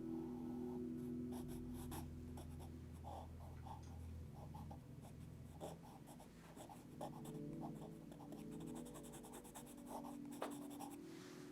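Quiet sketching strokes scratching across paper, short and irregular, over a steady low hum.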